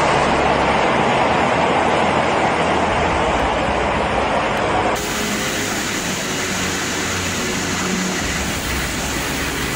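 Floodwater rushing in a torrent, a steady loud rush of noise. About five seconds in it changes to a slightly quieter, thinner rush.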